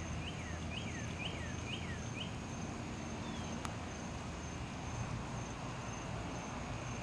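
Floodwater spilling over a canal wall in a steady rushing hiss. A bird gives about six quick, downward-slurred chirps in the first two seconds, over a constant high insect buzz.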